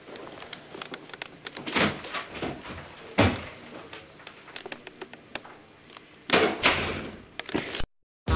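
Scattered knocks and thumps of people moving about a small room. The sharpest knock comes about three seconds in, and a longer, louder clatter about six and a half seconds in; the sound cuts off to silence just before the end.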